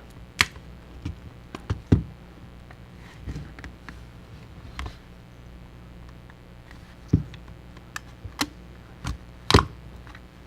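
Irregular small clicks and taps as a guitar pick is worked along the edge of a Samsung Galaxy J7 to pry the frame away from the screen glass, which is holding stiffly. The sharpest click comes near the end, over a steady low hum.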